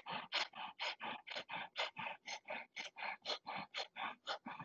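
Kundalini breath of fire: rapid, forceful rhythmic breathing through the nose, short hissing puffs at about four a second, held steady.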